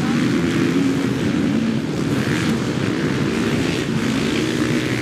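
Several off-road motorcycle engines running together in a dense, steady drone, their pitches wavering as the riders work the throttles.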